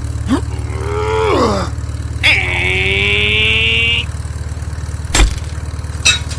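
A small engine running steadily with a low pulsing hum. Over it come two short pitched sounds that rise and then fall, then a held high tone lasting about two seconds, and a few sharp clicks near the end.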